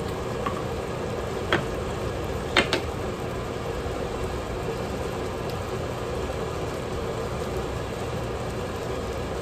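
Steady hum and hiss from the gas stove, where green salsa is simmering in a pan. In the first three seconds there are a few light clicks of a knife against a mustard jar.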